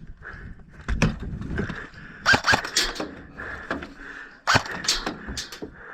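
Airsoft guns firing: a series of sharp cracks and clicks, several shots spread unevenly across a few seconds.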